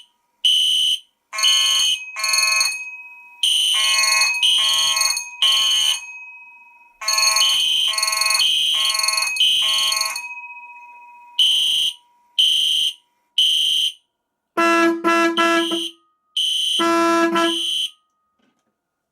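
Several fire alarm horns sounding together in repeating short blasts, mostly in groups of three like a temporal-three evacuation signal, with a steady alarm tone underneath through the first half. The blasts come faster in the last few seconds and stop about a second before the end. Really loud.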